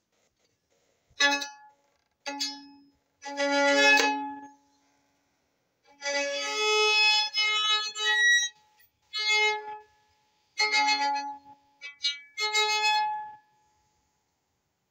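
Violin bowed in a string of short phrases and single held notes, with brief pauses between them.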